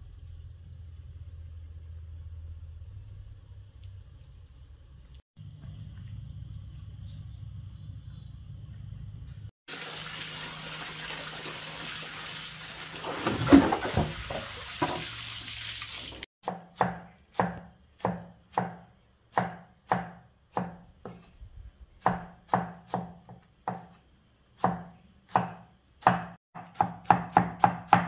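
A low rumble with faint high chirps, then water running from a tap for about six seconds with a few knocks. Then a knife chops on a cutting board in steady strokes about twice a second, quickening to about three a second near the end.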